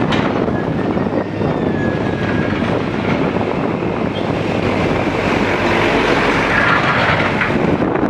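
Case backhoe loader's diesel engine working as the bucket digs, mixed with vehicles passing on the road; it grows a little louder near the end.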